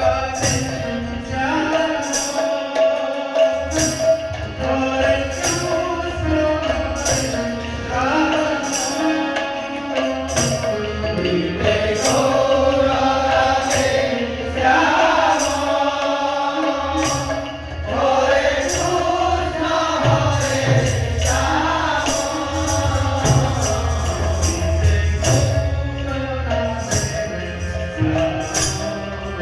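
Devotional kirtan music: voices singing a melody over a steady held accompanying note, with drums and small metal cymbals or jingles struck in a steady beat about twice a second.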